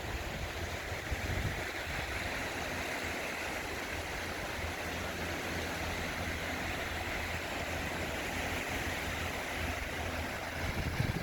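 Sea waves washing onto the shore: a steady rushing surf with a low rumble beneath it.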